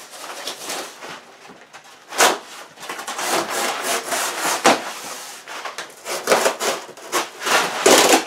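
Corrugated cardboard box being cut open with a blade: a run of uneven scraping strokes through the cardboard, with a sharp louder stroke about two seconds in and the loudest strokes near the end.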